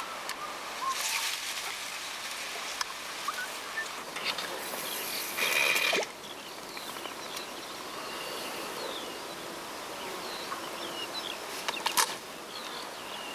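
Outdoor riverbank ambience: a steady hiss with insects buzzing and small birds chirping now and then. A louder rush of noise lasts about a second, five seconds in, and a sharp click comes near the end.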